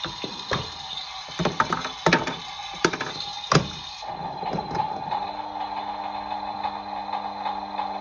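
Several sharp plastic clicks as a hand works the controls of a toy washing machine; about four seconds in, the toy's small electric motor starts and runs with a steady hum as the drum turns the plastic balls.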